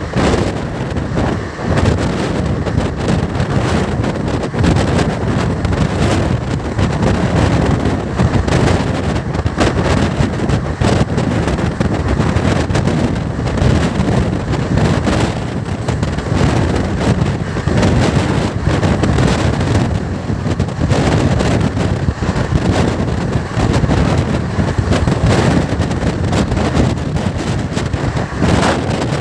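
Wind buffeting the microphone over the steady rumble and clatter of the 17644 Circar Express passenger train's wheels running on the rails at speed, heard from the open coach door.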